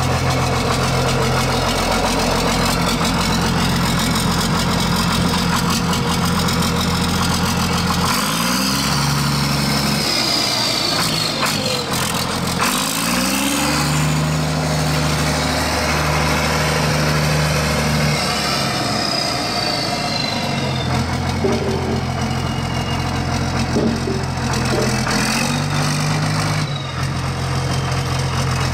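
Large diesel tractor engines idling steadily. The engine note shifts pitch every few seconds, with short rising revs about eight and twelve seconds in.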